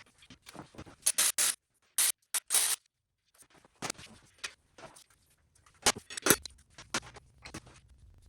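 Metal engine parts and hand tools being handled during engine teardown: scattered clicks, clinks and scrapes, with a few short, loud noisy bursts between about one and three seconds in.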